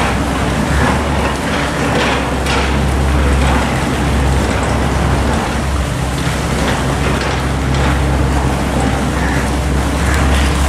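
Construction machinery running nearby: a loud, steady low engine drone, with a few faint clatters over it.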